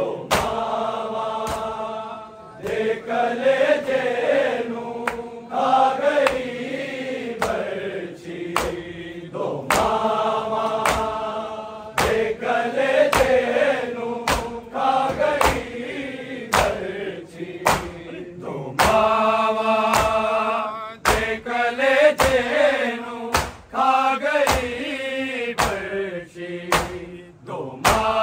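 Men's voices chanting a Punjabi noha, a Shia mourning elegy, as a group with a lead reciter, the melody bending and held in long phrases. Sharp strikes keep a slow beat under the chanting.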